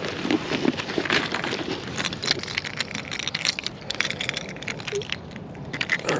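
Fishing tackle being handled in a soft zippered tackle bag close to the microphone: rustling and crinkling with frequent small clicks and clacks.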